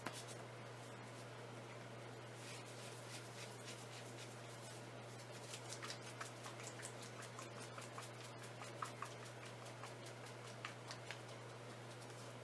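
Faint, scattered small clicks and rustles of hands handling a plastic craft-paint bottle and its cap, over a steady low hum.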